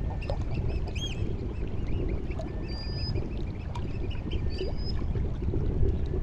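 Tidal sea water lapping and sloshing steadily, with a flock of birds calling over it: many short calls repeated several times a second, and a few brief rising whistles.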